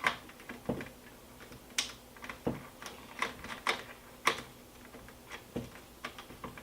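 Irregular small clicks and knocks of a boom microphone being fitted and tightened onto a Panasonic AG-AC8 camcorder.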